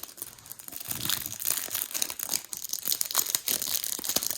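Packing material being unwrapped by hand, with continuous crinkling and some tearing that grows louder about a second in.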